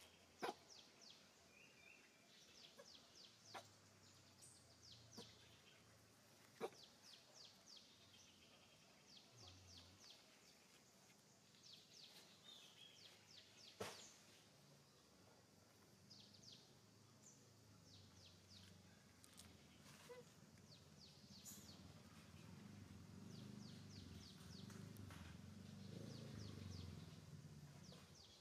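Faint forest ambience: rapid trains of high chirps repeating every second or two, with a few sharp clicks, and a low rumble that grows over the last several seconds.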